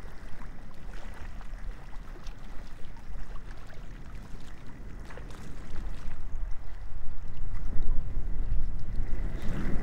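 Wind rumbling on the microphone, with faint water lapping and a few small clicks; it grows louder in the second half.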